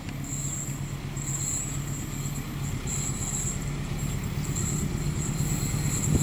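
Diesel-electric locomotive pulling a train of tank wagons as it approaches, its steady low engine hum growing louder.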